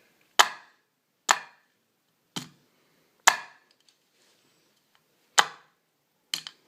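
Hammer striking plastic earbuds, about seven sharp single blows roughly a second apart, with a pause of about two seconds midway and the last two blows close together.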